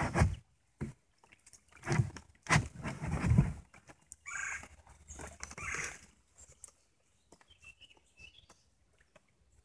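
Knocking and rattling against a metal jon boat's hull as a limb line is grabbed and hauled in over the side, followed about halfway through by two short, high-pitched calls.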